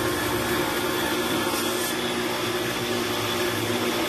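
Pressure washer running steadily, its motor and pump humming under the hiss of the water jet as the soapy car is rinsed down.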